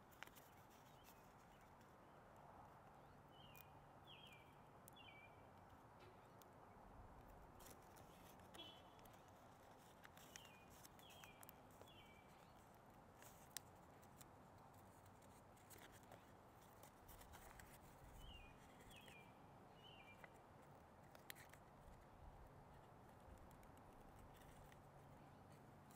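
Near silence, with faint clicks and crinkles of thin origami paper being creased by hand. A bird chirps faintly now and then in quick runs of about three short notes.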